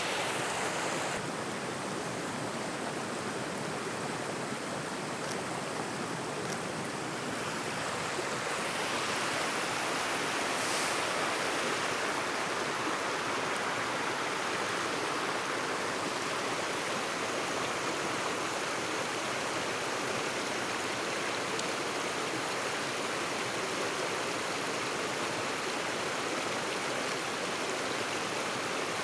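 Small stream flowing steadily, a little louder from about a third of the way in.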